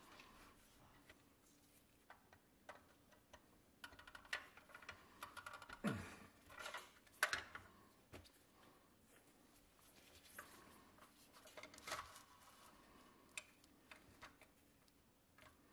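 Quiet handling noises from a restored 1960s tin-and-plastic toy cement mixer truck: scattered light clicks and taps of its parts, with the rustle and scrape of gloved hands, busiest around the middle.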